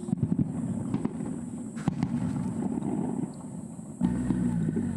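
Aerial fireworks crackling and popping, with a sharp pop about two seconds in and a low rumble starting about four seconds in.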